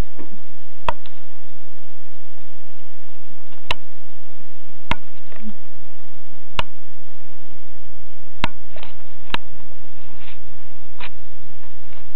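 About six sharp single clicks at uneven intervals, with a few fainter taps near the end, over a faint steady hum.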